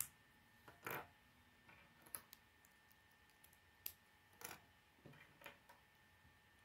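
K'nex plastic pieces clicking faintly as they are handled and pressed together: irregular short clicks and snaps, the strongest at the start and about a second in.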